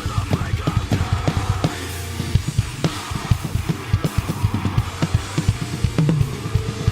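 A drum kit played fast and hard, with rapid bass-drum strokes under snare hits and cymbals. The kit is close-miked and heard raw, only panned and levelled.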